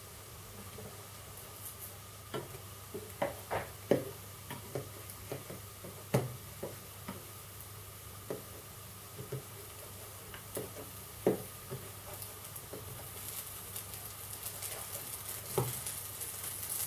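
Welsh cakes frying in a non-stick frying pan with a faint sizzle that grows a little louder near the end, while a spatula knocks and scrapes against the pan at irregular intervals as the cakes are turned.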